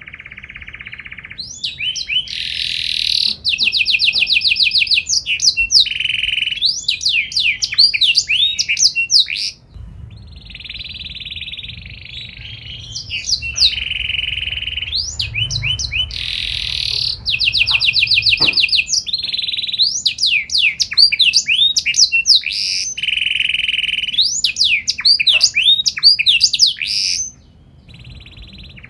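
Domestic canary singing loudly in two long song bouts. Each bout mixes fast trills, rapid repeated rising notes and buzzy rolls, with softer phrases in between.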